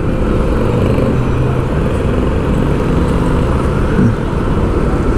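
Road traffic: a steady, loud rumble of motor vehicles running close by on the street, with one engine's hum standing out over the first couple of seconds.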